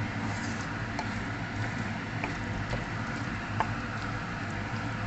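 Chicken curry in coconut milk simmering and sizzling in the pan, with a few small pops over a steady low hum. The oil has separated out of the sauce.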